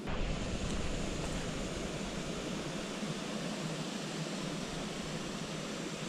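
Steady rushing noise of wind on the microphone, with a low rumble that sets in suddenly at the start.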